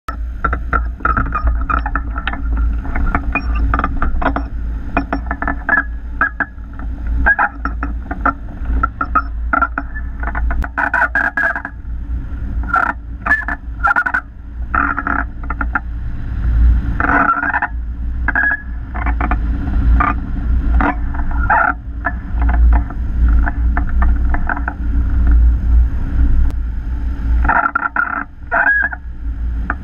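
Wind buffeting the microphone of a camera mounted on a hang glider's wing as the glider launches and flies, a steady deep rumble. Short irregular higher-pitched chirps and flutters run over the rumble.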